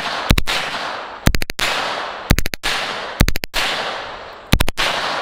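H&K MP5 submachine gun in 9mm Parabellum firing on full auto: five short, rapid bursts of two to five shots each, about one burst a second, each trailing off in echo.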